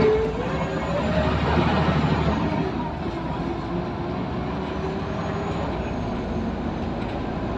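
Scania L94UB Wright Solar bus heard from inside the saloon while on the move: the engine and drivetrain run with a whine that rises in pitch over the first second or so, then holds steady under a constant road rumble. A short sharp click comes at the very end.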